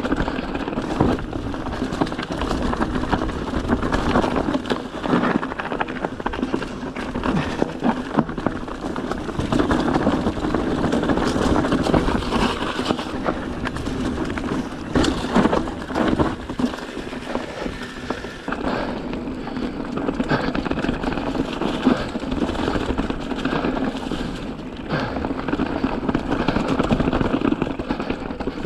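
Full-suspension mountain bike (a 2017 Giant Trance 2) being ridden over a rocky trail: tyres rolling and the bike rattling, with frequent knocks and clicks, heard from a chest-mounted camera.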